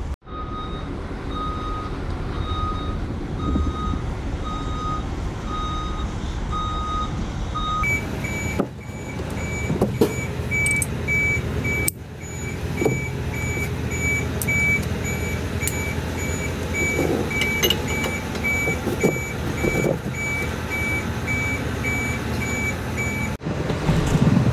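Vehicle back-up alarm beeping steadily, about one and a half beeps a second. A lower-pitched alarm gives way to a higher-pitched one about eight seconds in. Occasional metallic knocks come from hand tools on a truck's rear wheel hub.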